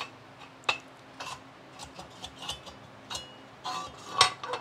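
Irregular metal clicks and knocks as a straight metal bar is slid through the hole in a metal dolly frame and turned to line up its bolt holes. The loudest knock comes near the end.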